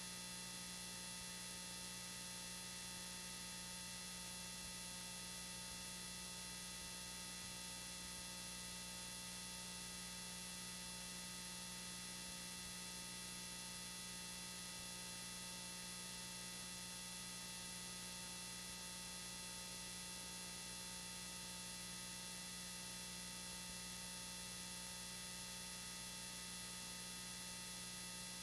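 Steady electrical hum and hiss with several constant thin whining tones, unchanging throughout, with no other sound: the noise of a faulty home-video audio track.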